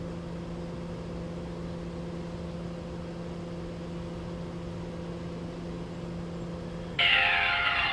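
BGH Quick Chef microwave oven running with a steady hum. About seven seconds in, the hum cuts off and a music tune starts: the microwave's musical end-of-cooking alert.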